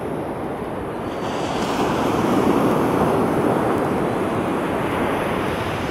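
Ocean surf washing onto a sandy beach: a steady rush of waves that swells about two seconds in and then slowly eases, with wind buffeting the microphone.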